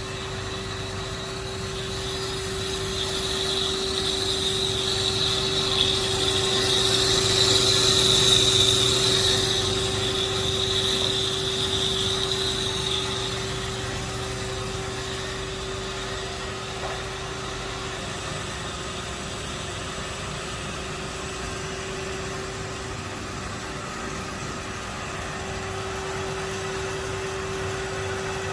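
S-300HF band saw running with a steady motor hum. A hissing, high-pitched cutting noise builds over the first few seconds, is loudest about eight seconds in, and fades away by about fourteen seconds, leaving the steady hum.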